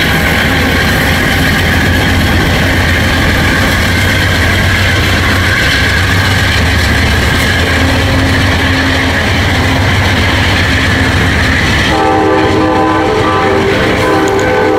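Amtrak passenger train cars rolling past close by: a loud, steady rumble and rattle of wheels on rail. About twelve seconds in, the rumble drops and a train horn's chord of several steady notes starts sounding.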